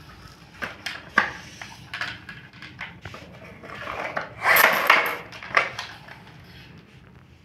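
A hard plastic toy stroller with a doll knocking and scraping on a tiled floor as it is pushed about. There is a run of small knocks, then a louder clatter about four and a half seconds in.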